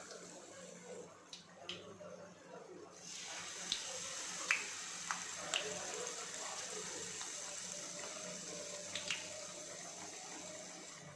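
Malpua batter frying in hot oil in a pan: a steady sizzle with scattered small pops and crackles, growing louder about three seconds in as a second spoonful of batter goes into the oil.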